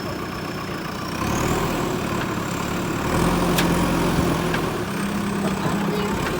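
Backhoe loader's diesel engine running, speeding up about a second in and again around three seconds in, with a high whine that rises along with it.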